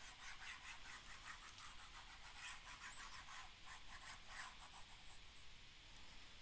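Faint, quick scratching strokes of a stylus rubbing back and forth across a tablet screen as handwritten notes are erased, several strokes a second, thinning out in the last two seconds.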